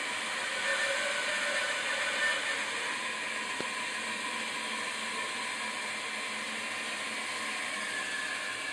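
A woodworking machine's motor running steadily in the workshop, a constant whirring hiss with a faint steady whine.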